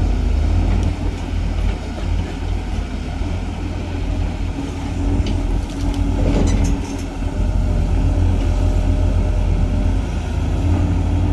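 Pindad excavator's diesel engine running steadily with a heavy low rumble, with a few sharp metallic clanks about halfway through.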